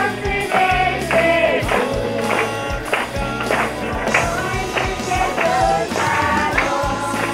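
Group of children and women singing together to a strummed acoustic guitar, with hand clapping on a steady beat about twice a second.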